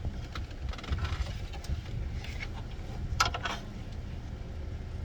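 A few sharp clicks and knocks of hand work on plastic wiring-harness clips in a car's engine bay, the strongest a short cluster a little past three seconds in, over a low steady rumble.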